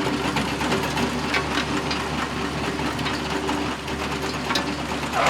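Dump truck engine running steadily with a fast mechanical rattle of ticks over a low hum.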